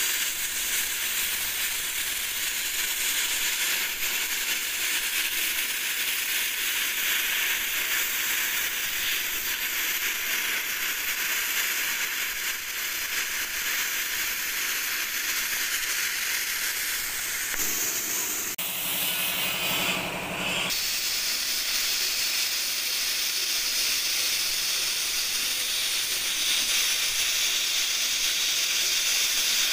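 Plasma cutting torch on a profile cutting machine cutting steel plate: a steady, loud hiss from the air plasma arc. For a couple of seconds near twenty seconds in, the sound shifts and a lower buzz comes in.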